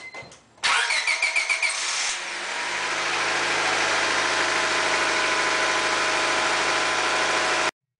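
Honda Civic's four-cylinder engine being started: the starter cranks for about a second and a half, the engine catches and settles into a steady idle, and the sound cuts off abruptly near the end. This is a battery cranking test, and the battery passes: its voltage dips into the acceptable range and recovers quickly.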